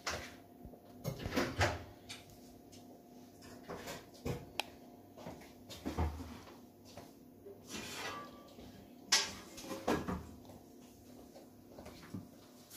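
Hands handling a small surprise toy and its packaging: a series of short rustles, clicks and taps, irregularly spaced, over a faint steady hum.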